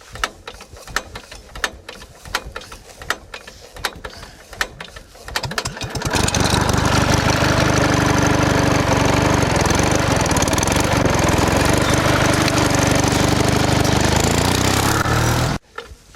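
Baler starting up and running: slow, irregular mechanical knocks and clicks for about five seconds, then the machine comes up to speed and runs loud and steady with a low hum, cutting off suddenly near the end.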